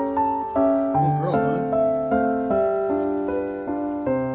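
Background music: a light keyboard tune playing one note after another, with a new note about every half second.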